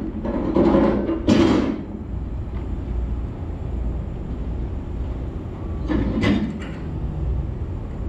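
Semi truck idling with a steady low rumble, with a few brief louder clatters about a second in and again around six seconds in.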